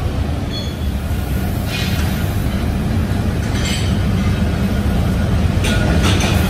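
Steady low rumble of factory machinery, with a few short hissing bursts about 2, 4 and 6 seconds in.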